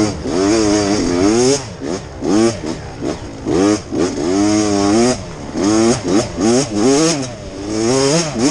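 Off-road dirt bike engine revving up and down over and over, its pitch climbing and dropping back about once or twice a second as the throttle is worked through the course.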